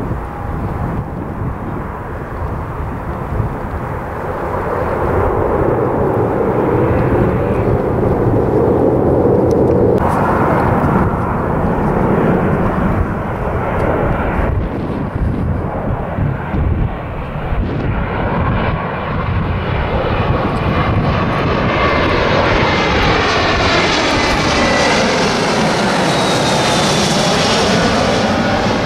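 A high-wing twin-turboprop airliner running on the runway, its engine and propeller noise swelling for the first ten seconds. After an abrupt cut, an Airbus A320-family jet on final approach passes low overhead. Its turbofan noise builds steadily, with rising and falling sweeping tones as it goes over.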